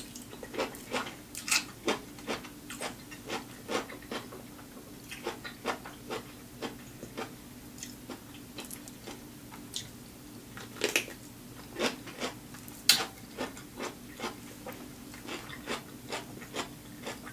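Close-miked chewing of crunchy cucumber spears soaked in vinegar and oil: irregular wet crunches and mouth clicks, a few louder crunches past the middle.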